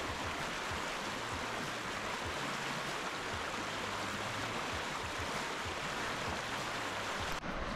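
River rapids: a steady rush of water running fast over rocks.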